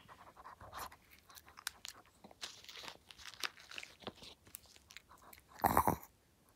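Maltese dog chewing a crunchy treat close up, a run of small crisp crunches, with one louder short noise about five and a half seconds in.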